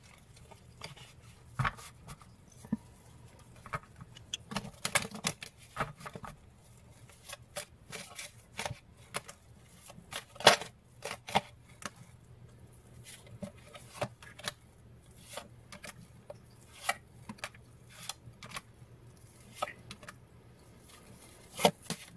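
A deck of oracle cards being shuffled by hand: irregular soft card clicks and rustles, with a few sharper snaps.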